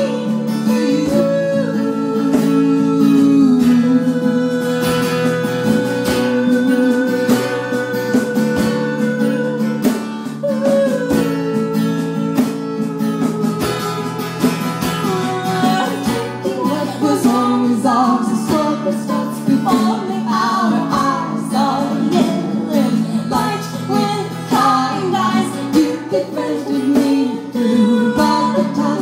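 Live acoustic song: female voices singing over a strummed and picked acoustic guitar.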